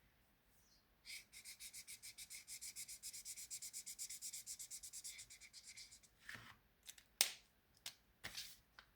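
Rapid back-and-forth rubbing strokes on a craft surface, about six a second for about five seconds, followed by a few separate clicks and short scrapes.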